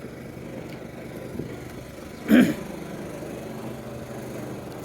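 Steady murmur of a crowd of people walking and chatting outdoors, with one short loud burst about two seconds in.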